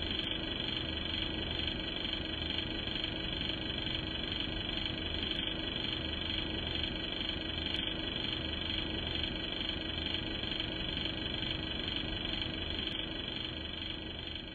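Steady hiss with a faint low hum underneath, fading down near the end.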